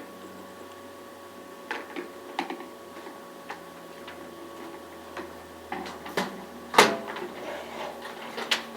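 Irregular clicks and knocks of a shop vacuum's top being set onto its stainless steel canister and shifted to line it up, the loudest knock about two-thirds of the way through.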